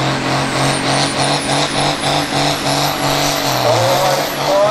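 Competition pulling tractor's engine running loud and steady, with a pulsing of about four or five beats a second through the first half and a thin high whine slowly rising in pitch.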